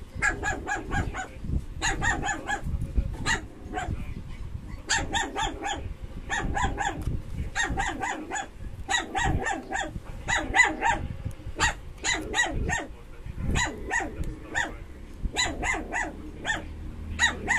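Dog yapping in rapid runs of short, high-pitched barks, several a second, with brief pauses between runs.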